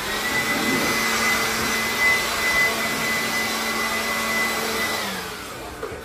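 Handheld electric vacuum running with a steady high motor whine, then switched off about five seconds in, its pitch falling as the motor spins down.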